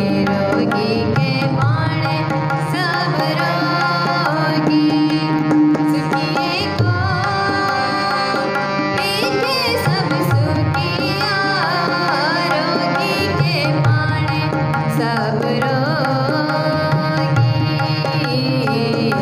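Sikh shabad kirtan: female singing with two harmoniums, and a tabla pair keeping a steady beat.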